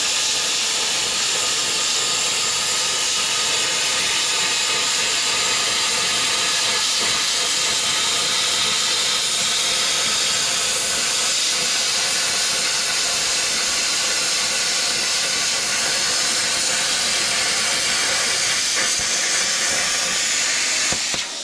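Plasma cutter cutting steel plate: a loud, steady hiss of the arc and air jet that stops abruptly at the end of the cut.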